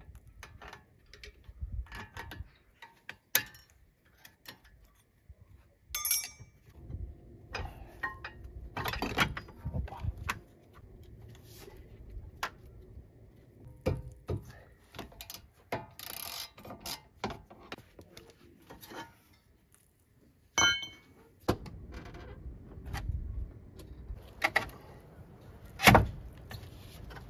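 Irregular metallic clinks, clicks and knocks of hand tools and brake hardware as a car's rear brake caliper is unbolted and lifted off the hub, with the loudest knock near the end.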